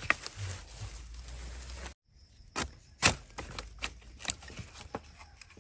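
Long-handled spade chopping at wild bamboo shoots: sharp, cracking strikes, one at the start and then, after a short break, a quick irregular run of them, the loudest about three seconds in.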